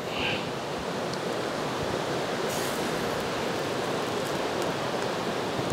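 Steady rushing of a river running close by, an even noise that holds without break.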